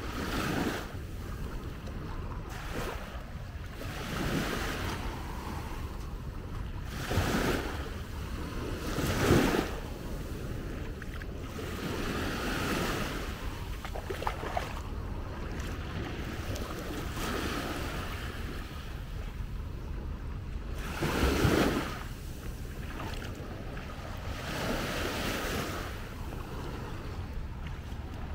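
Small sea waves breaking and washing up on a sandy beach, in surges every few seconds; the biggest come about 9 and 21 seconds in. A steady low rumble of wind on the microphone lies under it.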